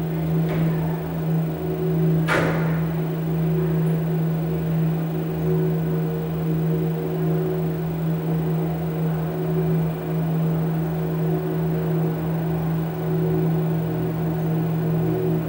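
Steady electronic drone: a strong low hum with several fainter steady tones above it over a hiss, and one short, sharp noise swish about two seconds in.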